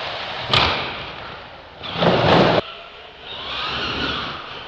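Radio-controlled monster truck: a sharp thud about half a second in as it lands, then a loud noisy crash about two seconds in that cuts off suddenly. Its motor then whines up and down as it revs.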